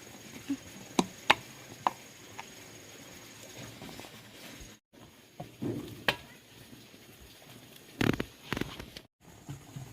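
A scatter of sharp knocks and clicks, a few single ones in the first seconds and a quick cluster near the end, with the sound cutting out briefly twice.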